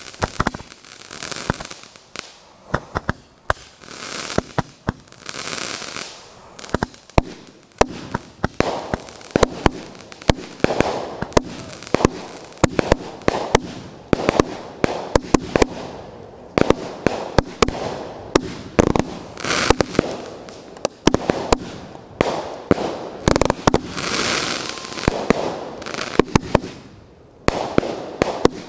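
Fireworks display: aerial shells bursting in a rapid, irregular string of sharp bangs, with stretches of hiss between them.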